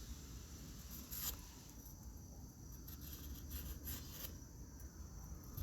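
Folding knife blade making fine, delicate slicing cuts: a few faint scraping strokes.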